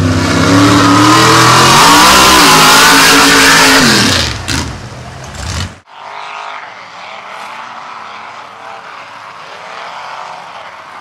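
A loud engine revving, its pitch rising and falling, ends with a sudden cut just before six seconds in. It gives way to the quieter, steady idle of the lifted school-bus mud truck and the Ford pickup waiting side by side at the drag-race start line.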